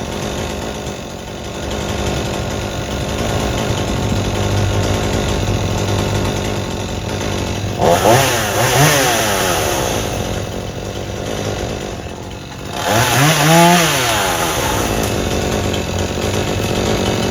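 Chainsaw running steadily, revved up twice, about eight seconds in and again about thirteen seconds in, its pitch rising and then falling back each time.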